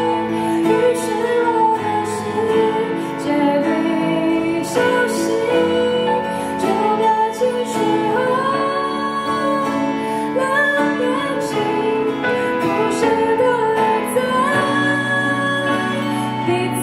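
A woman singing a Mandarin pop ballad live into a microphone, accompanied by acoustic guitar.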